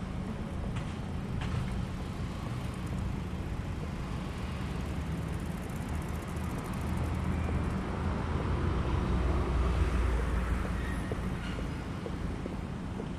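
A train running past on the tracks below, heard as a steady low rumble. It swells about seven seconds in and eases off near the end.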